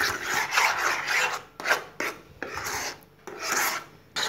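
Steel ladle scraping through thick mango jam on the bottom of a non-stick pan, in about four strokes with short pauses. The jam is being stirred while the sugar dissolves, to keep it from catching on the bottom.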